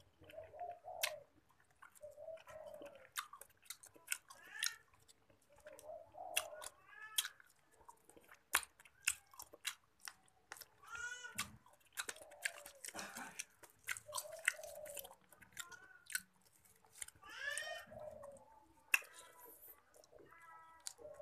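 A person chewing a mouthful of nasi padang eaten by hand, with many sharp wet lip-smacks and clicks. A few short pitched squeaky sounds come now and then.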